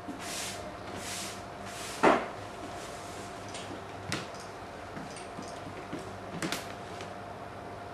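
A hand sweeping flat across a large sheet of painting paper on a cloth-covered table: three short brushing swishes, then one sharp knock about two seconds in. After that come a few light taps and clicks over a faint steady hum.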